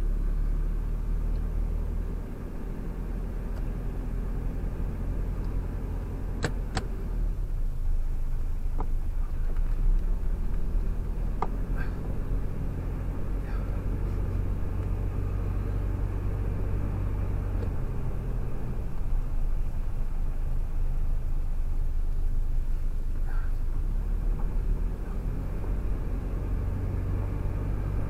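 Car driving on winter tyres, heard from inside the cabin: a steady low rumble of engine and tyre road noise, with a few brief sharp clicks about six to twelve seconds in.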